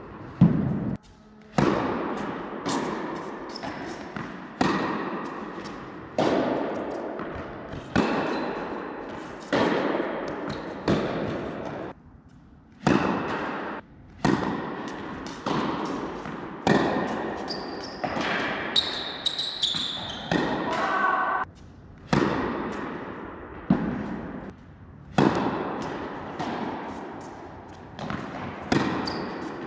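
Tennis ball struck by rackets and bouncing on an indoor court during play, a sharp pop every second or two, each one ringing out in the hall's echo.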